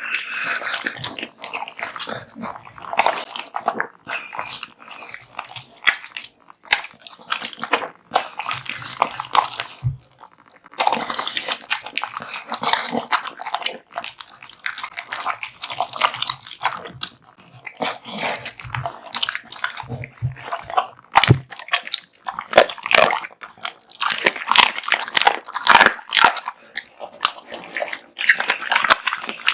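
American Bully dog chewing and biting through raw meat and bones, with wet, irregular crunching and occasional sharp cracks.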